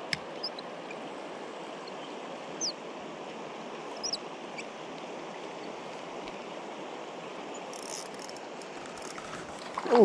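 Steady rush of a flowing river, with a few short high bird chirps. A brief loud swoosh falling in pitch comes near the end.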